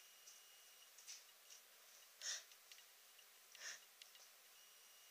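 Near silence: room tone with a few faint breaths, about three in all, spaced a little over a second apart.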